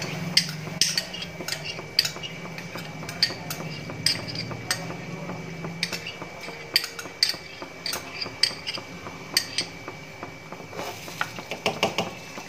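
Spatula scraping and knocking against a nonstick pan while stirring thick semolina halwa with melted ghee. It comes as irregular sharp clicks and scrapes, bunched more closely near the end.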